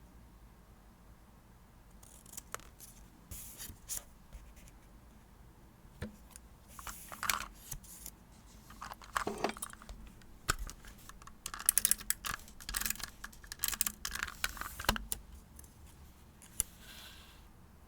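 Stationery handling while decorating a diary: scattered taps and clicks with short bursts of paper and sticker-sheet rustling, busiest in the second half.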